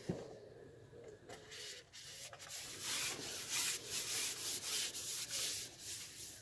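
A single knock, then a run of rasping, rubbing strokes from about two and a half seconds in as a carbon fishing pole is handled and slid close to the microphone.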